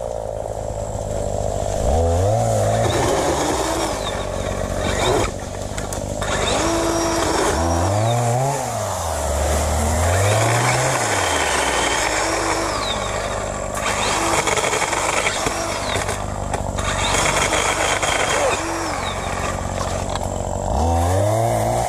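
Chainsaw engine idling, revved up and let back down about four times, each rev rising and falling over about a second.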